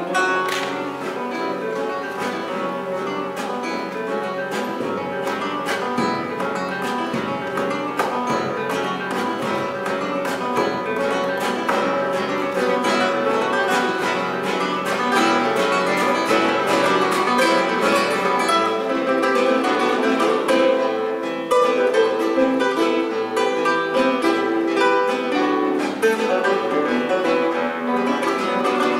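Three nylon-string classical guitars playing together in a Brazilian baião piece, densely plucked and strummed, growing gradually louder.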